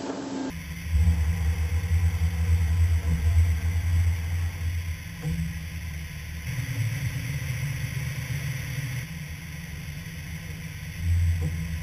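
Danobat R2-1500-B CNC cylindrical grinding machine running, a low rumble over a steady hiss that swells for the first few seconds, eases off, and rises briefly again near the end.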